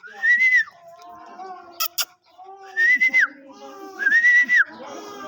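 Three whistled notes, each about half a second long: a quick rise, a held high pitch, then a drop at the end.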